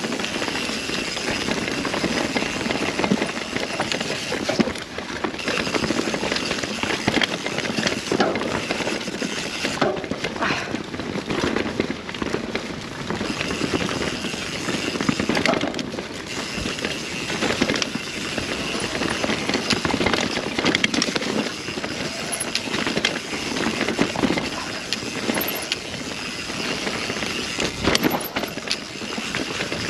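Mountain bike descending a rough dirt trail: tyres rolling over the ground with constant rattle and clatter from the bike, and sharper knocks over bumps several times.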